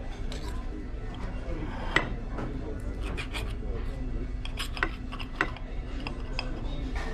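Cutlery clinking and scraping against a plate while eating: scattered sharp clicks, the loudest about two seconds in, over a steady low hum.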